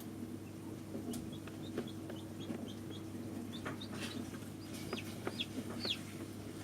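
Newly hatched chicks peeping in an incubator: a quick series of short, high cheeps, ending with a longer falling peep, over a steady low hum.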